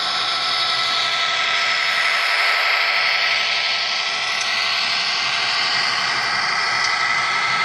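Model NSW 82 class diesel locomotives running past on the track: a steady high whine with rolling noise that swells a little as the engines go by.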